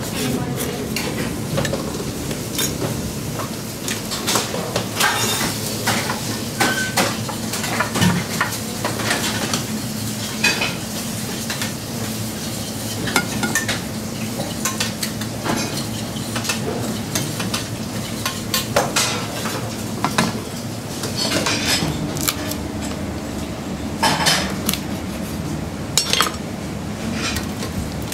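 Busy restaurant kitchen during service: frequent clinks and clatter of china plates, pans and cutlery being handled, over a steady low hum.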